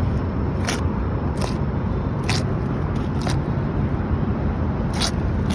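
Steady low outdoor rumble, with five short scratchy clicks spread through it, roughly a second apart.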